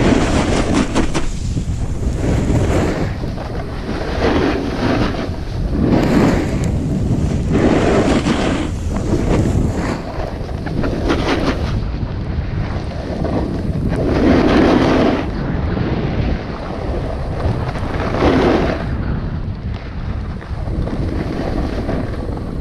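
Wind buffeting an action-camera microphone during a fast descent on a snowboard, with the rushing scrape of the board's edges on packed snow swelling with each turn every couple of seconds.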